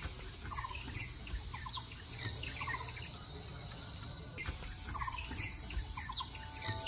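Insects droning steadily in a high, even buzz that swells about two seconds in and eases back about four seconds in, with many short, repeated bird chirps over it.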